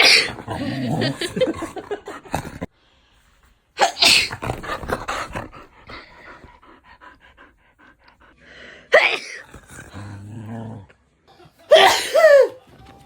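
A person sneezing several times, and a pet dog answering with a short, wavering vocal grumble near the end.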